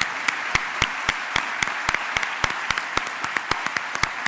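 Large audience applauding, with many sharp single claps standing out over the steady clapping.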